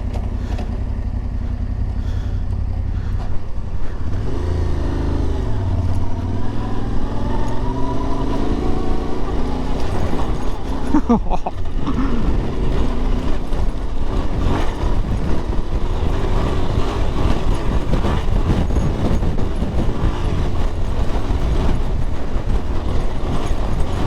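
Yamaha Ténéré 700's parallel-twin engine running under way off-road, the revs rising and falling through gear changes, with wind noise over it.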